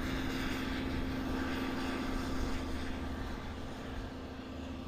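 EMD DM30AC diesel locomotives of a Long Island Rail Road train pulling out of the station: a steady engine drone with a constant hum, slowly fading in the last couple of seconds as the train moves away.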